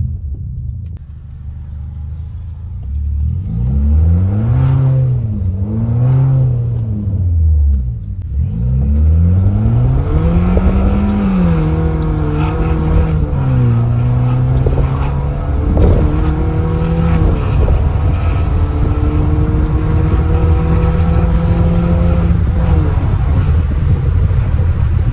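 BMW 116i's turbocharged four-cylinder engine revving: two quick rises and falls in pitch, then from about nine seconds in a hard acceleration with the pitch climbing, dropping sharply at two upshifts, pulling on steadily, and falling away as the throttle lifts near the end.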